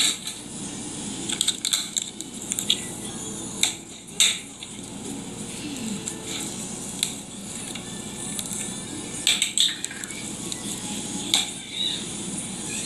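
Slime squishing and crackling as it is tipped out of plastic cups into a plastic bowl, with foam-bead slime giving scattered sharp clicks and pops over a low steady background noise.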